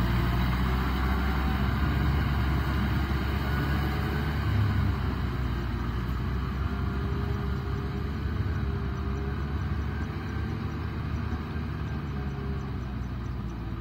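Kubota M6040SU tractor's diesel engine running steadily, growing gradually fainter as the tractor moves away.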